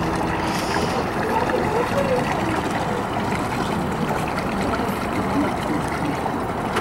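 Steady churning and splashing of water thrown up behind an amphibious electric trike on pontoons as it drives itself across the water.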